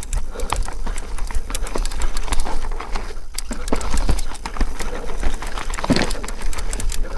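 Mountain bike descending a downhill trail: a dense, irregular clatter of knocks and rattles as the bike bounces over rough ground, over a steady low rumble, with one louder thump about six seconds in.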